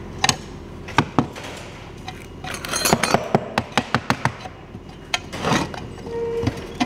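Metal clinks and knocks as a socket wrench undoes the bolt holding a mower blade to its steel blade disc, with the bolt, washers and blade knocking on the steel. There are separate clinks early on and a quick run of them around the middle.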